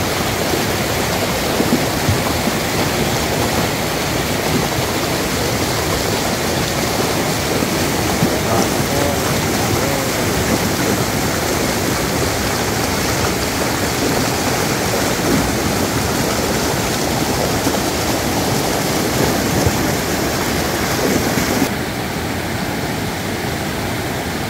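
Shallow rocky stream rushing in rapids over and around boulders: a loud, steady rush of white water. About 22 seconds in it turns slightly quieter and duller.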